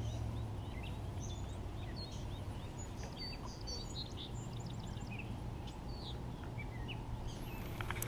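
Small birds chirping, with many short high calls scattered throughout, over a steady low rumble of background noise.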